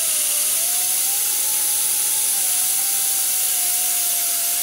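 Right-angle die grinder with a sanding disc running against the edge of a thin sheet-metal washer spinning in a lathe. A steady high hiss with a whine that wavers slightly in pitch as the disc is pressed against the work.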